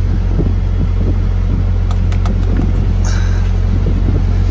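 Steady low hum of an idling engine, with a few faint clicks about two seconds in and a short scrape about three seconds in.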